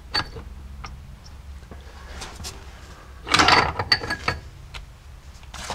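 Metal clinking and rattling of the NP231 transfer case's two shafts and drive chain as they are worked loose and pulled out by hand, with a sharp click just after the start and a burst of clattering about three to four seconds in.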